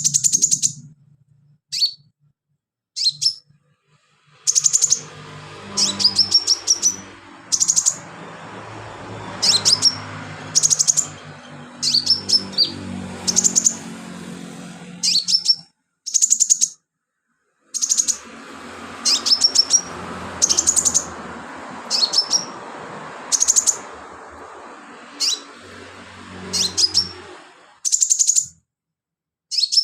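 Sunbird singing in short, loud bursts of high, sharp chirps and quick trills, phrase after phrase with brief pauses. For long stretches a low, steady hum with some hiss runs underneath.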